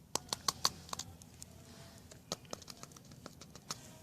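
Patio sand being poured from a funnel into a concrete crack: light, irregular clicks and ticks of grains and the funnel, with a faint hiss of running sand about two seconds in.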